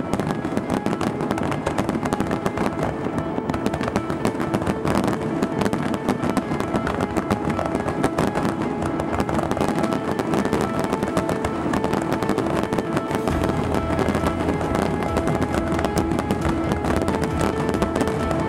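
Fireworks bursting and crackling in a dense, continuous volley, mixed with music of sustained tones; a deeper bass enters in the music about two-thirds of the way through.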